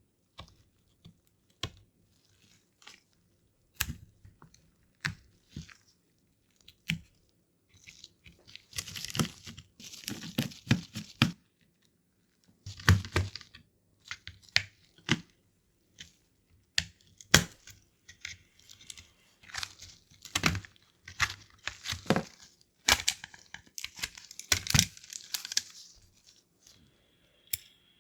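Small tools and plastic parts of a Nintendo DSi XL handled during a tear-down: scattered sharp clicks and taps, with several stretches of scraping, peeling noise.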